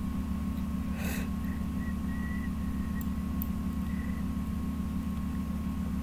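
Steady low electrical or machine hum with hiss and a faint high steady tone: background noise picked up by a screen recorder's microphone, with a brief rush of noise about a second in.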